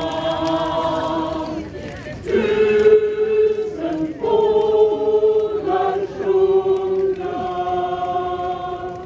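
Mixed choir singing a Swedish spring song, holding long notes with short breaks between phrases.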